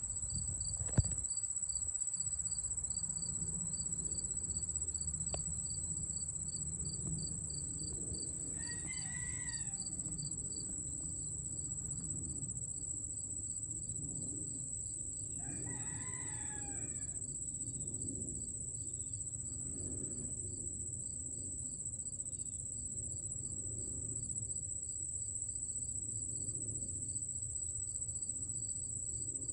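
Insects calling steadily: a constant high-pitched drone with a pulsing chirp just below it. A rooster crows twice, about a third of the way in and again just past the middle, and there is one sharp click about a second in.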